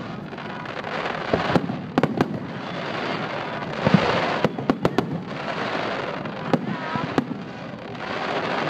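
Aerial fireworks shells bursting in quick succession: about a dozen sharp bangs in clusters, the loudest about four seconds in, over a dense crackling from the many small bursting stars.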